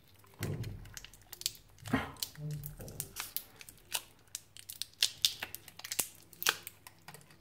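Plastic wrapper being peeled and torn off a Samsung 18650 lithium-ion cell: irregular crackling with many sharp tearing clicks.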